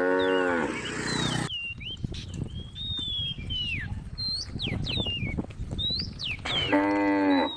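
A cow mooing, one long moo at the start and a second, shorter moo near the end, with birds chirping in gliding whistles in between.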